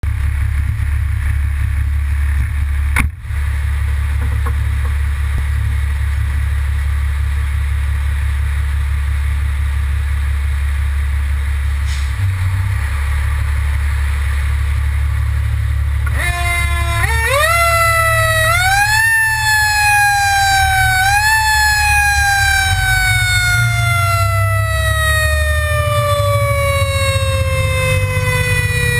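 Fire engine's diesel engine rumbling at idle and then pulling away, with a sharp click about three seconds in. About halfway through, the truck's siren starts: its pitch climbs in steps, then slides slowly down over about eight seconds before climbing again at the end.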